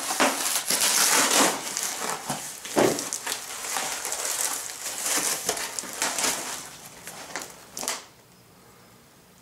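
Plastic film and cardboard packaging being cut and torn open by hand, with a dense crinkling and crackling full of sharp clicks. It stops about eight seconds in.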